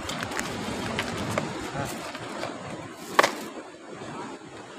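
Small clicks and rustles of hands rummaging in a backpack and plastic bag, with one short sharp rattle about three seconds in, over a steady rushing background.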